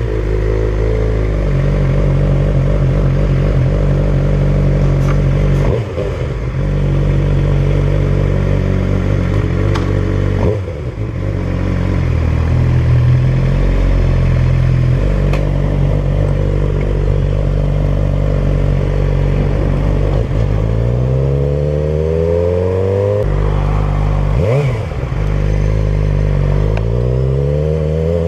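Suzuki GSX-R 600 inline-four sport-bike engine idling steadily, then pulling away about twenty seconds in: the engine note rises under acceleration, drops at a gear change, and climbs again.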